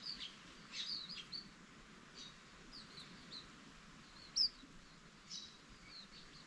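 Green-backed white-eyes giving short, high chirps, several in quick succession early on, then scattered, with one louder, sharper chirp a little after the middle.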